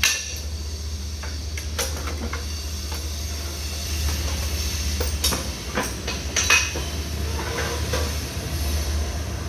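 Light clanks and rattles of a thin 26-gauge galvanized sheet-metal tray, a wooden board and clamping pliers being handled: a few sharp knocks, the loudest right at the start and about six and a half seconds in, over a steady low rumble.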